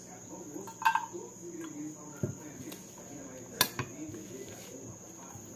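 A steady high cricket trill runs throughout, over the small sounds of eating from a glass plate: a few sharp clicks of a spoon and dish, the loudest about a second in and again about three and a half seconds in.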